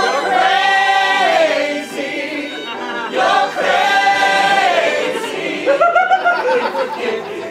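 A group of voices singing together in chorus, holding two long notes and then a shorter phrase.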